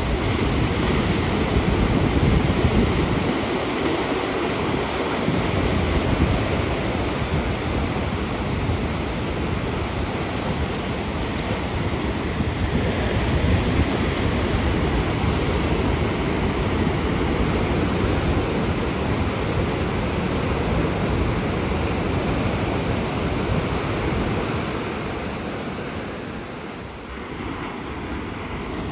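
Ocean surf breaking and washing in, with wind buffeting the microphone as a low rumble. The wind rumble eases briefly a few seconds in and again near the end.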